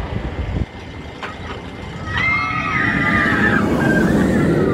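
Steel roller coaster train rumbling along the track as it passes, with riders screaming from about two seconds in.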